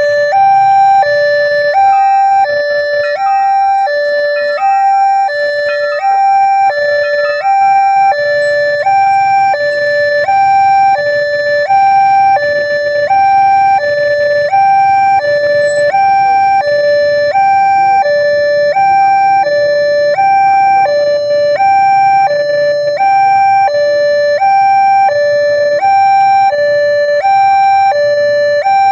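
Railway level-crossing warning siren sounding: a loud electronic two-tone alarm alternating steadily between a higher and a lower note, about one high-low cycle every 1.3 seconds.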